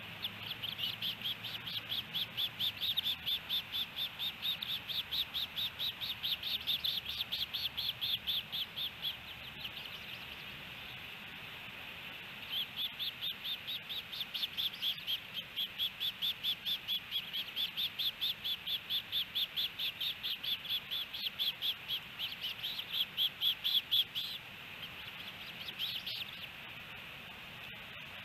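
Osprey calling at the nest: a fast series of high whistled notes, about five a second, in two long runs of roughly ten seconds each with a pause between, and a short run near the end.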